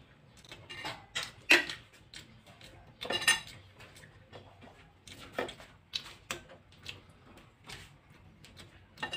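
Metal spoon clinking and scraping against a glass baking dish as food is scooped, a scatter of short sharp clicks with one brief ringing clink about three seconds in.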